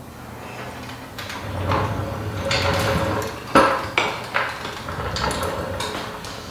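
Steel floor jack being worked and pulled out from under a car on a concrete floor: metal rattling, with a few sharp clanks around the middle.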